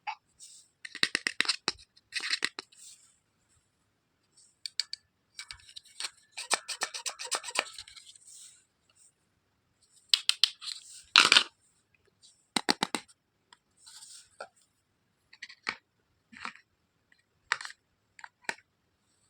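Plastic toy pieces and packaging being handled: irregular clicks, rattles and crinkling in short bursts, the loudest cluster of clicks about eleven seconds in.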